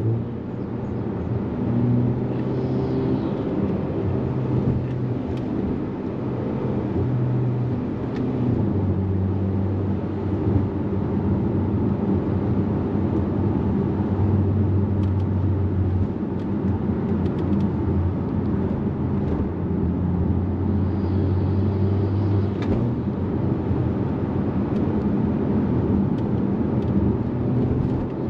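Hyundai Kona N's 2.0-litre turbocharged four-cylinder engine running while the car is driven, its note holding steady for stretches and shifting in pitch several times as the revs change, over steady road and tyre noise.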